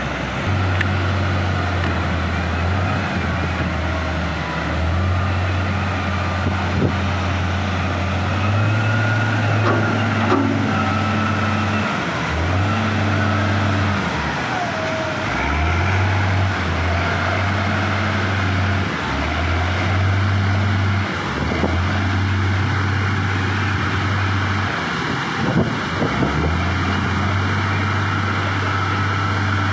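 Diesel engine of a Hindustan 2021D wheel loader working a load of aggregate into a tipper and backing away. The engine speed rises and falls every few seconds, with a couple of knocks about 26 seconds in.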